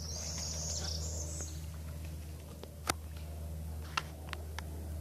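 Outdoor ambience over a steady low hum: a bird chirps in a high band for the first second and a half, and a few sharp clicks follow, about three seconds and four seconds in.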